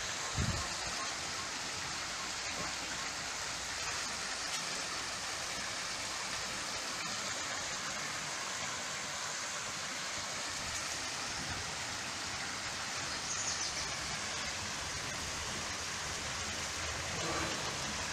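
Steady rushing noise, with one light knock about half a second in.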